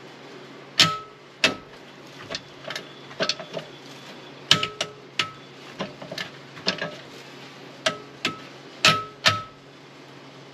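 Irregular metal clanks and knocks, about a dozen, several leaving a short ringing tone, as metal parts are knocked against each other. The sharpest come about a second in and twice near the end.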